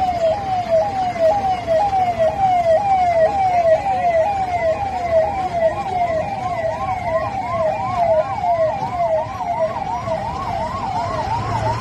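Police escort car's electronic siren wailing in quick, even sweeps, about three a second, its sweep reaching a little higher in the second half, over the low rumble of passing traffic.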